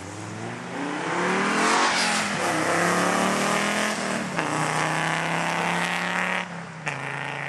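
Rally car engine revving hard under acceleration as it passes, climbing in pitch and dropping back at gear changes about two and four seconds in. It holds a steady note, then falls away a little over six seconds in.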